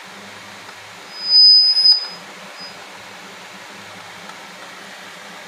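Acoustic feedback whistle from a Boya BY-M1 lavalier mic brought in front of the amplifier's loudspeaker: a loud, high-pitched steady squeal swells up about a second in, lasts about a second and cuts off, with a short faint blip of it just after. Under it runs a steady hiss and low hum.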